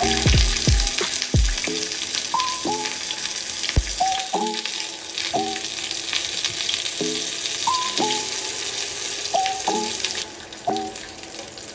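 Oil sizzling in a frying pan as dumplings and chicken pieces fry, a steady hiss that cuts off suddenly near the end. Background music plays over it.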